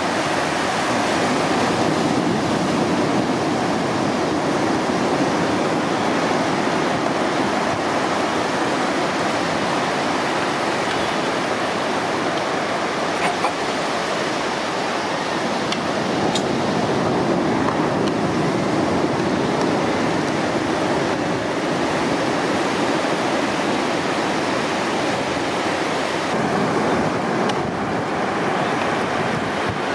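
Sea surf and waves rushing steadily, an even, continuous noise with no let-up.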